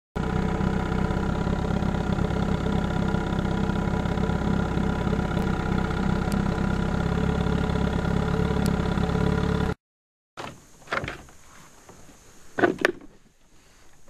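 Small boat's outboard motor running at a steady speed, then stopping suddenly. A few seconds later come a couple of scuffing thumps, the louder one near the end.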